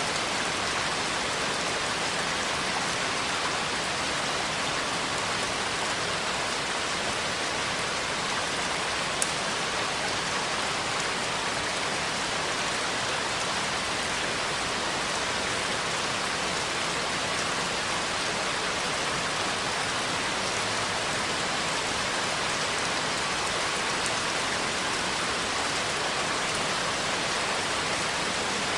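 Steady, even rain falling, a continuous patter with no change in strength, with a single short click about nine seconds in.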